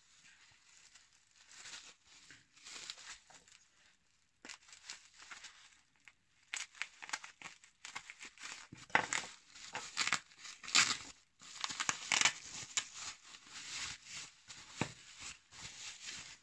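Plastic bubble wrap crinkling and tearing as it is cut with a folding knife and pulled open by hand. It is irregular and light at first, then denser and louder crackling from about six seconds in.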